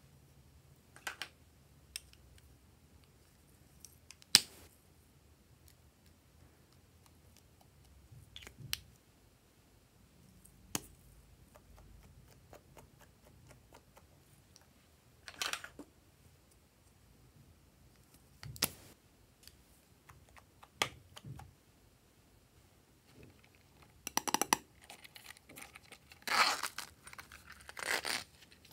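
Small plastic containers being handled: scattered sharp clicks and taps of a nail polish bottle and its cap. Near the end there is a busier run of clicks and rustling as a plastic compact of glitter foam pieces is opened.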